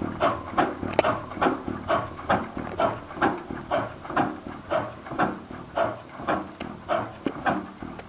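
A 100-horsepower hit-and-miss stationary gas engine with twin flywheels running, its exhaust and valve gear beating about two and a half times a second, some beats stronger than others.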